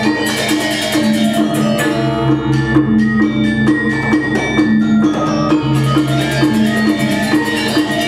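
Live Balinese gamelan music: bronze-keyed metallophones playing fast struck patterns over sustained ringing tones, with percussion.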